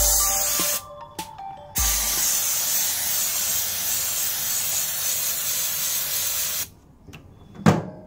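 Aerosol snow spray can spraying: a short hissing burst, a pause of about a second, then a steady hiss of about five seconds that cuts off. Near the end a single knock as the microwave door is shut.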